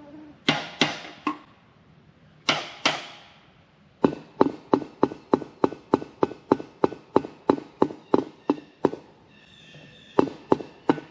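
Repeated hammer blows: a few separate strikes, then from about four seconds in a fast, even run of about three blows a second. After a short pause the blows start again near the end, some with a light metallic ring.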